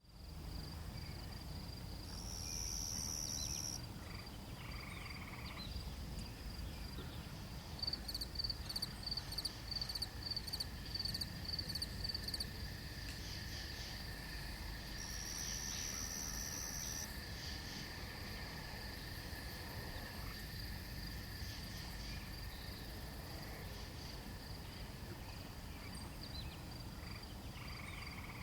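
Night chorus of crickets and katydids: a steady high-pitched trill throughout, joined by a run of rapid pulsed chirps about eight seconds in. Two short, louder, higher buzzes come about three seconds and fifteen seconds in, over a low rumbling background.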